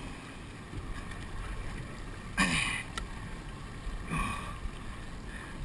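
Wind and water noise on a fishing boat at sea, heard through an action camera's microphone: a steady low hiss and rumble, with two brief louder rushes about two and a half and four seconds in.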